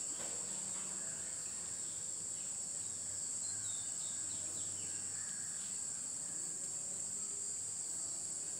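Steady high-pitched chorus of crickets, with faint scratches of chalk on a blackboard.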